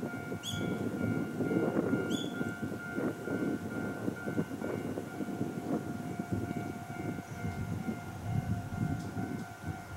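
Japanese railway level-crossing alarm sounding steadily, over a low, uneven rumble.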